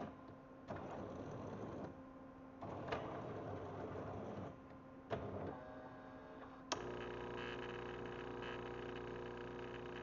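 Automatic espresso machine running its brewer deep-clean cycle: three short spells of hissing flush, each starting with a click. About two-thirds in a sharp click comes, and a steady motor hum with several held tones takes over.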